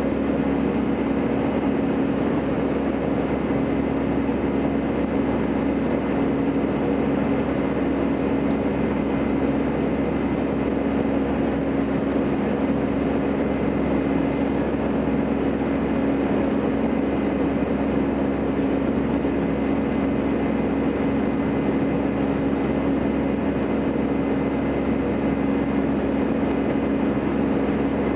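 Jet engine noise inside the cabin of an Airbus A318 climbing after takeoff: a steady drone with a low hum that holds constant.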